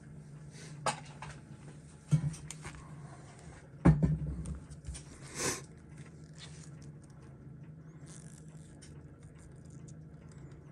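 Scattered small clicks and taps of steel tweezers working on a watch movement and picking up a loose movement plate, with one duller knock about four seconds in. A faint steady low hum runs underneath.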